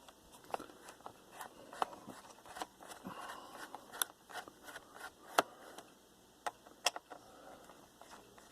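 Irregular small clicks, ticks and light scraping of a screwdriver and fingers working on a laptop's plastic bottom cover and its screws, with a sharper click about halfway through and another near the end.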